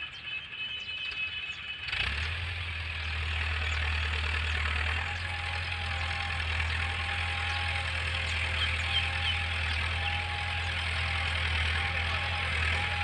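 Tractor diesel engine running steadily under load as it pulls a chisel plough, a low drone that grows louder about two seconds in.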